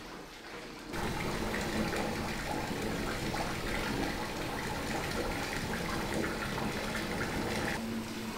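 Running water, a steady noisy rush that cuts in suddenly about a second in.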